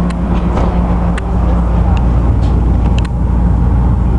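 Steady low rumble and drone inside a Washington Metro railcar, with a few sharp clicks scattered through it.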